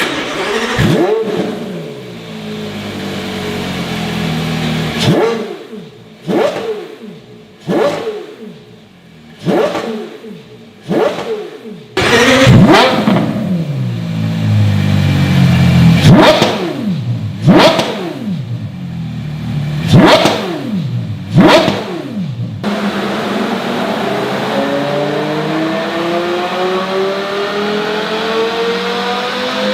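Porsche Carrera GT's 5.7-litre V10 through a JCR Developments exhaust, revved in a series of sharp throttle blips, each rising and dropping quickly. From about 23 s it makes one long, steadily climbing pull on a dyno.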